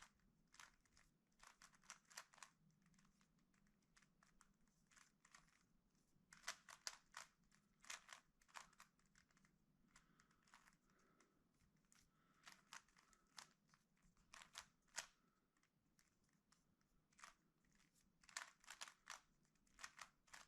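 Faint, irregular clicking of a Rubik's Cube's layers being turned by hand, coming in quick clusters with short pauses between them.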